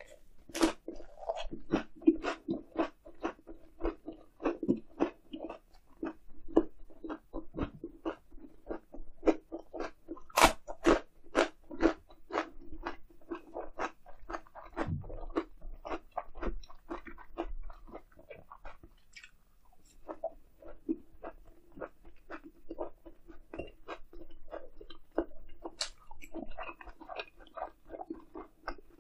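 Close-miked chewing and crunching of grilled eel in a leaf wrap (ssam), with many small wet mouth clicks, and a short lull about two-thirds of the way through.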